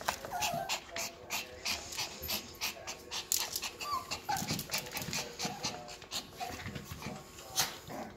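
Yorkshire terriers whimpering and panting in short squeaks, over many quick clicks and scratches.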